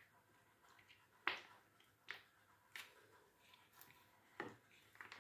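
Faint crinkles and squelches of a soft plastic mayonnaise pouch being squeezed by hand: about five short, sharp sounds, roughly one a second.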